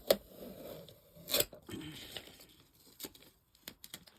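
Handling noises: a sharp click just after the start, a louder knock about a second and a half in, then a run of light clicks in the second half.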